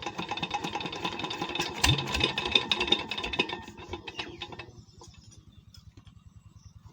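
Single-cylinder SD 16 HP Chief diesel engine running after a repair, with a steady rhythmic thump and loud metallic clatter. About two-thirds of the way through the clatter falls away, leaving a quieter steady thumping.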